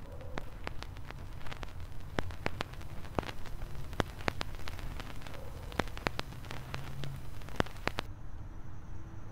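Vinyl record surface noise from a turntable: irregular crackles and pops over a low rumble and hiss, with no music. The crackle thins out and the hiss drops away near the end.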